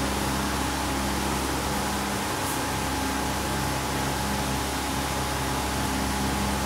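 Steady room noise: an even hiss with a low hum and a thin, faint, steady high tone.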